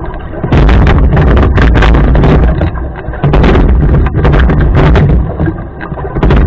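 Rowing boat under way: wind rumbling on the microphone with sharp knocks from the oars and boat, swelling and easing in a cycle of about three seconds, like the rhythm of the strokes.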